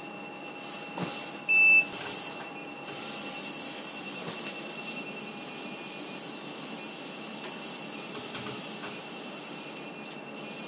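EMRF facial beauty machine giving one short, high beep about one and a half seconds in, over a steady background hiss.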